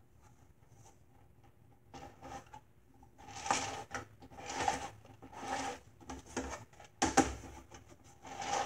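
Plastic lazy-susan turntable being spun by hand on a wooden box, its bearings rattling and rumbling in pushes about once a second from about three seconds in, with a sharp knock about seven seconds in.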